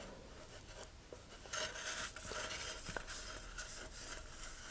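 Wooden dowel rubbing and scraping inside a paper model-rocket tube as it spreads a wet glue fillet: faint, uneven scratchy strokes starting about a second and a half in.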